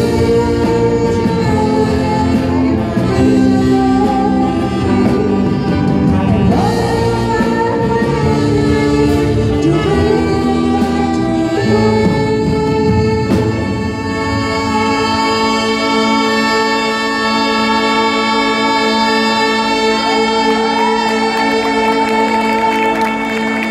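Live big band with saxophones, clarinet and trumpet playing behind a singer. About halfway through, the horns settle into long held chords.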